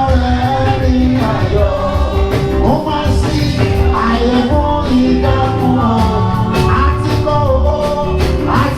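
Live gospel music: sung vocals over a band with a heavy bass line and steady drumming.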